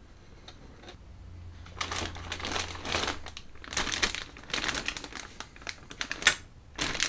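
Clear plastic bag around a plastic model kit's parts sprue crinkling as it is handled, in irregular rustling bursts from about two seconds in, with one sharp crackle near the end.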